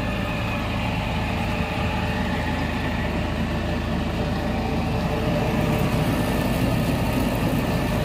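Mini silage baler running steadily as chopped silage is fed in, a dense mechanical hum with several steady tones. It grows a little louder, with more hiss, about five seconds in.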